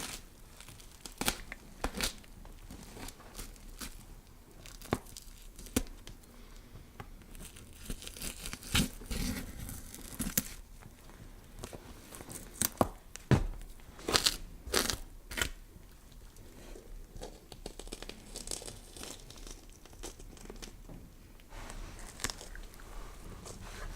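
Horror sound effect of flesh being scraped and cut: irregular tearing and scraping strokes with sharp crunches, thickest and loudest a little past the middle.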